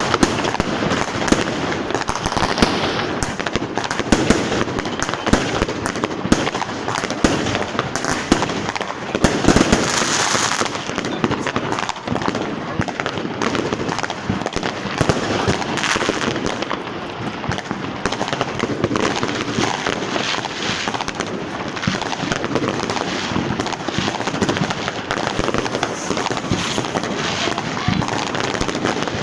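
Street fireworks and firecrackers going off without a break, a dense crackle of bangs and pops with a louder flurry about ten seconds in.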